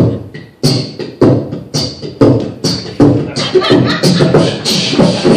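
A man making percussive mouth sound effects into a microphone, like beatboxing. Sharp hits come about every half second, then crowd closer together into a faster, near-continuous run about halfway through.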